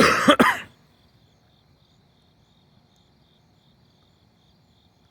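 A person coughs twice in quick succession at the start. After that, crickets chirp faintly in a steady pulsing rhythm.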